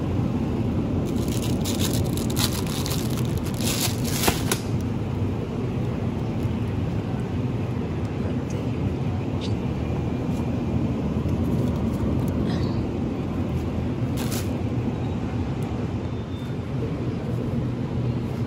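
Steady low background hum of a supermarket aisle lined with refrigerated produce shelves. A cluster of short rustles and clicks comes in the first few seconds, and one more about fourteen seconds in.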